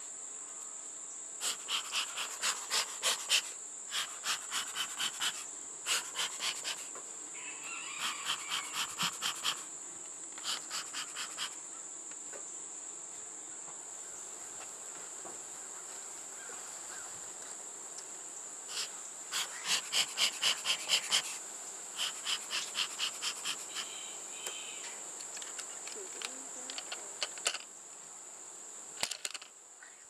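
Insects calling: a steady high-pitched drone, with repeated runs of rapid, evenly spaced chirps that come and go for a few seconds at a time.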